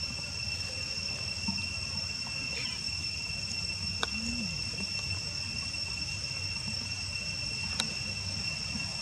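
Steady high-pitched insect drone, two unbroken shrill tones, over a low outdoor rumble. Two short sharp clicks stand out, one about four seconds in and one near the end.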